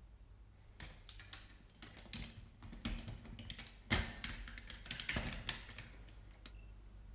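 Camera being mounted and adjusted on a tripod head: a scatter of small plastic-and-metal clicks and taps, the sharpest about four seconds in.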